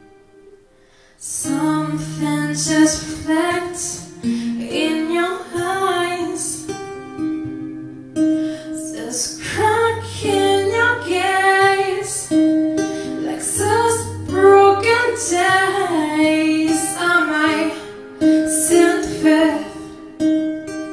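A song: a woman singing over plucked acoustic guitar, her voice coming in about a second in.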